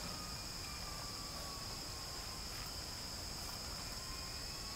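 Steady, unbroken high-pitched insect chirring, with a faint low background rumble beneath it.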